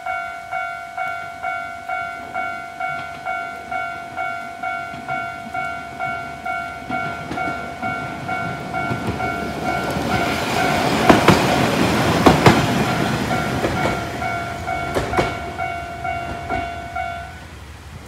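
Japanese level-crossing warning alarm ringing about twice a second while a Watarase Keikoku Railway diesel railcar runs over the crossing. The train's rumble swells about eight seconds in and is loudest around eleven to thirteen seconds, with a few sharp wheel clacks over the rail joints, then fades. The alarm stops near the end as the train clears.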